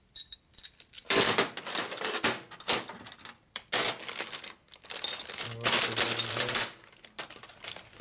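Loose steel engine hardware (long bolts, rods and spacers) clinking and clattering against each other and a steel workbench as it is picked up and sorted by hand, in irregular bursts of knocks with short pauses between.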